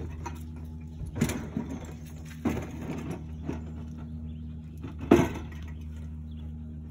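A steady, low mechanical hum runs throughout, with a few sharp knocks or taps on top of it. The loudest knocks come about a second in and about five seconds in.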